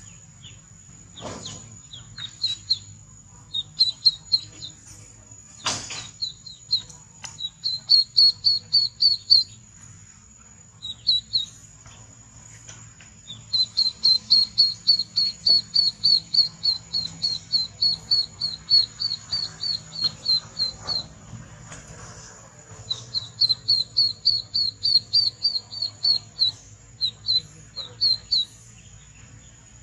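Ducklings peeping: quick runs of high, short peeps, about two to three a second, in several bouts with short pauses between them.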